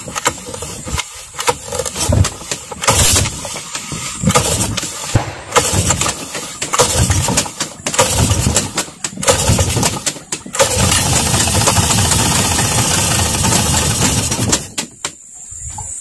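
Yamaha 40 hp outboard motor being started: a run of short, uneven bursts of cranking and firing, then the engine catches and runs steadily for about four seconds before cutting out near the end.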